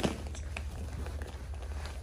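A small monkey's footfalls and light knocks as it goes to and climbs a wooden shelf, with one sharp knock at the start, over a steady low hum.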